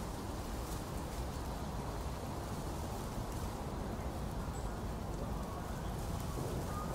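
Steady outdoor fairground ambience: an even, low background wash with no distinct events, and faint distant voices near the end.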